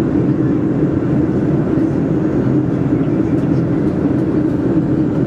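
Steady cabin roar inside a Boeing 737-400 in flight during its descent: airflow noise and the hum of its CFM56-3 turbofan engines, heard from an economy seat.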